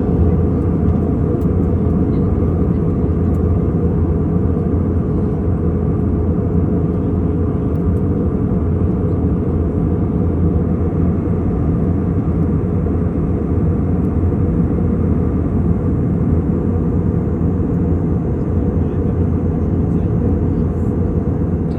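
Airbus A320 cabin noise in flight: a loud, steady low drone of engines and airflow with a faint steady hum in it.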